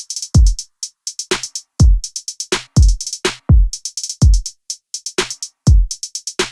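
Background electronic music: a drum-machine beat of deep kick drums that drop in pitch, with quick runs of crisp hi-hat ticks between them.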